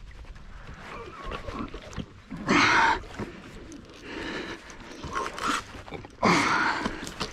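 Two short, loud vocal exclamations from the angler, about two and a half and six seconds in, each falling in pitch, as he fights a big catfish on a bent spinning rod. Fainter knocks and water noise come between them.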